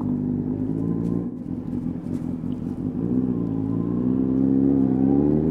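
Honda CBR600RR inline-four with a Leo Vince exhaust running at low revs, then revving up smoothly from about halfway through as the bike accelerates.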